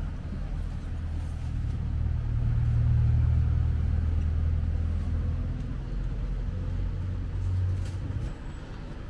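Low engine rumble that swells over the first few seconds, eases, and drops away about eight seconds in.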